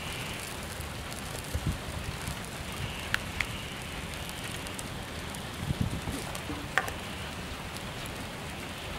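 Steady outdoor hiss with a low wind rumble, broken by a few sharp clicks and soft knocks as a knife, limes and bowls are handled on a wooden cutting board. The clicks come about three seconds in and again near seven seconds.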